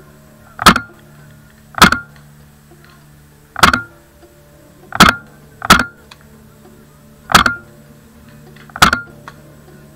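A scoped magfed paintball marker firing First Strike rounds: seven single shots at an uneven pace, each a sharp pop with a brief ring.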